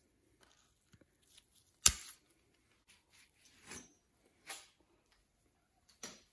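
Bicycle cable cutters snipping through the rear derailleur's steel shift cable: one sharp click about two seconds in. A few soft rustles of gloved hands handling parts follow.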